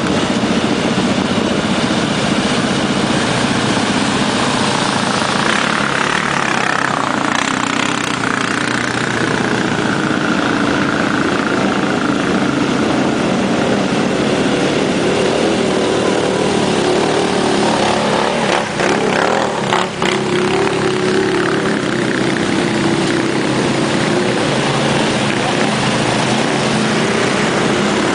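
ATV engine running, its pitch rising and falling with the throttle, amid a steady rushing noise.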